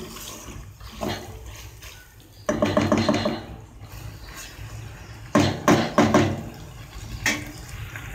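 Wooden spatula stirring macaroni in sauce in a nonstick pot: wet stirring and scraping against the pan, with a louder scraping stretch about two and a half seconds in and a cluster of sharp knocks a little after five seconds.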